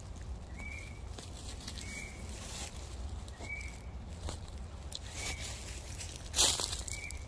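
A bird repeating one short high chirp about every second and a half, over faint rustling of dry leaves as a tent stake is handled at the ground, with one louder rustle about six seconds in.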